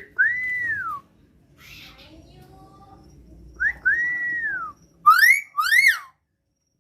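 Hill myna whistling: two clear whistles that each rise, hold and then slide down, followed near the end by two short, sharp whistles that swoop upward.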